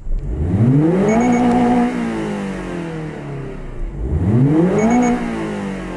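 Toyota GR86's 2.4-litre boxer flat-four engine revved twice. Each time the pitch rises quickly, holds briefly and falls back slowly toward idle.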